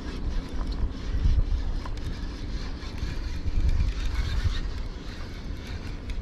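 Wind buffeting the microphone: a low rumble that swells in gusts, loudest about a second in and again near four seconds, over a steady light hiss.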